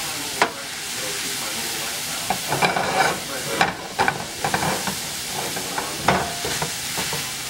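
Sliced onions, green peppers and mushrooms sizzling in a skillet while a wooden spatula stirs and scrapes them around the pan. There is a sharp knock about half a second in, and the scraping comes in uneven bursts through the middle.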